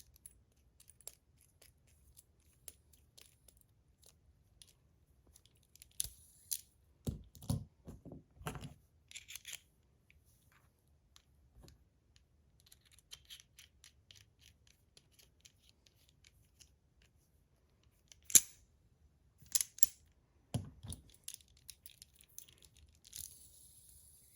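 Small metal fidget spinner parts being handled and screwed back together: scattered light clicks, taps and scrapes, with a few sharper clicks, and a faint high hiss near the end.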